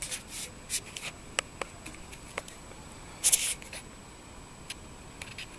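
Handling noise from a webcam being moved: a scattered run of light clicks and taps, with a short rustle about three seconds in.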